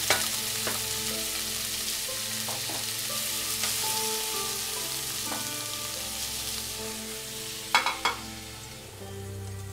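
Pineapple chunks, bell peppers and onion sizzling in hot oil in a nonstick pan as they are stir-fried, with a few sharp knocks of pan and utensil, two of them close together near the end. The sizzle thins out over the last second or two.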